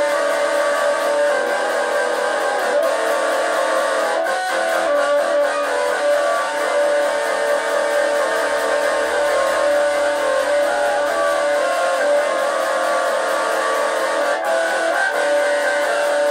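Electric guitar being strummed in an instrumental passage of a song, with sustained tones at an even level.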